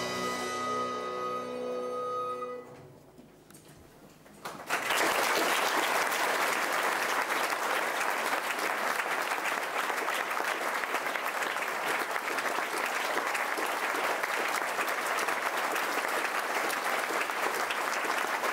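An early-music ensemble's last chord rings and dies away over the first couple of seconds. After a brief hush, the audience breaks into applause about four and a half seconds in and keeps clapping steadily.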